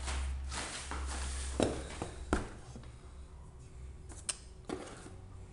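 Packaging rustling and several short knocks and clicks as a new motorcycle exhaust is unwrapped and handled.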